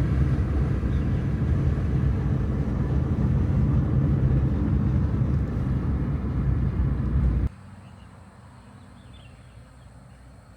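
Steady low rumble of road and engine noise inside a moving Citroën car, cutting off suddenly about seven and a half seconds in to much quieter background sound.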